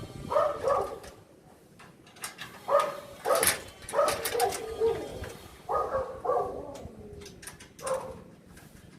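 A dog barking repeatedly in short bursts, often two or three barks together, with a few sharp knocks in between.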